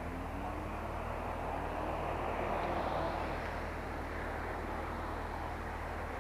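Traffic passing on a wet dual carriageway: steady tyre hiss and engine noise over a constant low rumble, swelling as a vehicle goes by about three seconds in.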